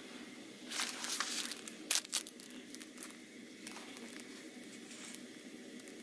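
Plastic-bagged door handle protectors being slid out of white cardboard packaging. There is rustling and crinkling about a second in, a few sharp crinkles at about two seconds, then softer handling.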